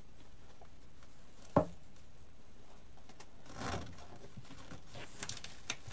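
A single sharp knock about one and a half seconds in, then soft rustling of ribbon and deco mesh and a few faint ticks as hands work a pipe cleaner through the layers of a ribbon bow on a wreath.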